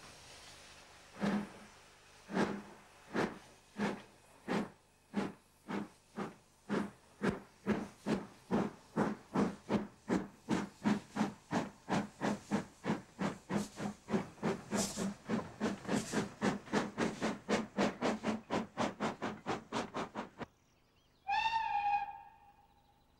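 Somerset & Dorset Joint Railway 7F 2-8-0 steam locomotive No. 53809 starting away: chimney exhaust beats, slow at first and quickening from about one a second to three or four a second as it gathers speed, with steam hissing from the open cylinder drain cocks. The beats stop abruptly near the end, and a steam locomotive whistle blows once, for about a second.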